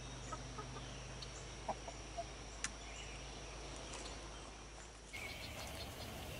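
Chickens clucking faintly in a backyard coop, a few short calls over a steady low outdoor hum and a faint high steady tone. About five seconds in the background changes to a different outdoor ambience with short bird chirps.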